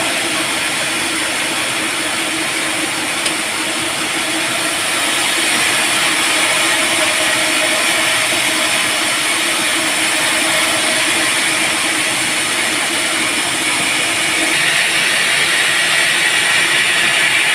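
Band sawmill running steadily, a continuous machine hum under a loud hiss; the hiss grows a little brighter and louder a few seconds before the end.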